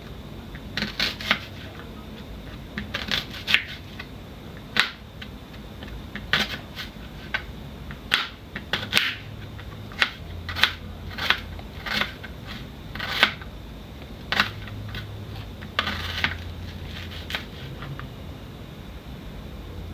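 Kitchen knife chopping onions and tomatoes on a cutting board: irregular sharp strokes, singly and in short runs, with pauses between.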